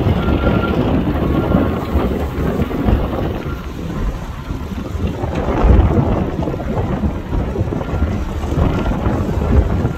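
Strong wind buffeting the microphone, a heavy uneven low rumble that swells and eases with the gusts.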